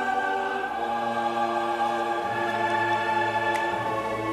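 Background score: a choir holding long sustained chords over low bass notes that change twice.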